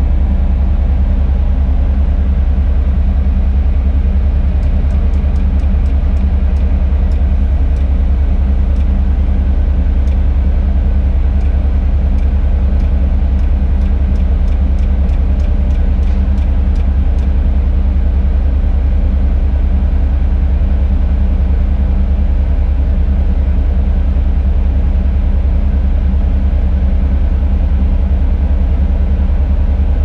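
Tadano 180G-5 crane's diesel engine running steadily while driving the hydraulics during a lift, heard from inside the operator's cab as a deep, even drone.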